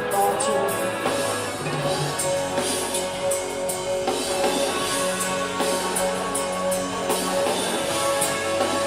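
Rock band music: a drum kit with frequent sharp cymbal strikes, guitar, and sustained chords underneath.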